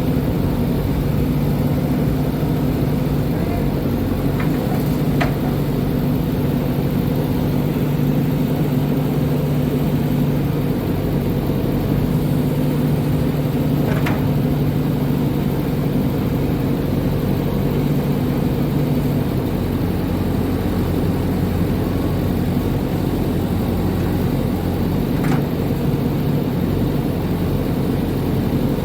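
Backhoe loader's diesel engine running steadily. Its note shifts slightly about twenty seconds in, and a few brief sharp sounds occur along the way.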